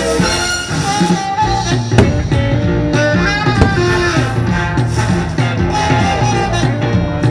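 Instrumental fireworks-show soundtrack music with a steady beat, marked by a few sharp hits, the strongest about two seconds in.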